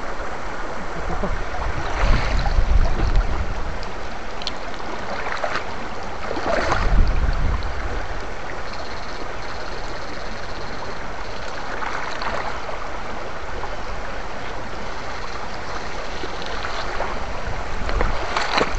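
Shallow stream water rushing and splashing as two electrofishing poles are swept through it. Louder, deeper rushes come about two seconds in and again around seven seconds, with a few sharper splashes.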